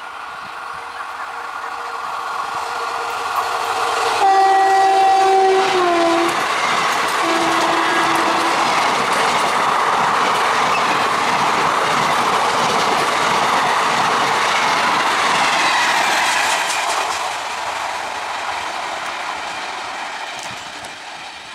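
An electric train approaching and passing at speed. Its horn sounds about four seconds in and drops in pitch as the train goes by, and a second short horn note follows a few seconds later. Then comes about ten seconds of steady wheel-on-rail noise, which fades away near the end.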